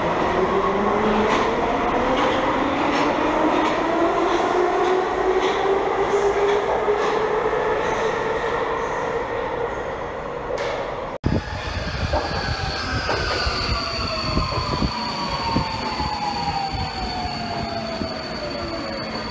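An older Communist-era metro train pulling out, its traction motor whine rising in pitch with rhythmic clicks of the wheels. After a sudden cut about eleven seconds in, a silver Alstom Metropolis train pulling in, its motor whine falling steadily as it brakes, with a steady high tone over it.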